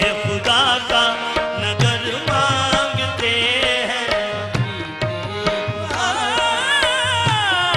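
Qawwali-style naat: a male lead voice sings long ornamented, wavering phrases over steadily held harmonium chords, with tabla strokes keeping the rhythm.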